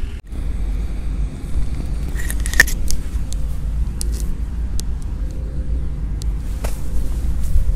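Wind buffeting the microphone on an open golf course, a steady low rumble, with a few sharp clicks and taps, the loudest about two and a half seconds in.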